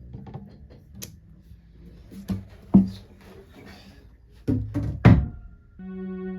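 Music production sounds played back: a few scattered drum hits, the loudest about three seconds in and about five seconds in, then a sustained pitched note with a stack of overtones that starts near the end.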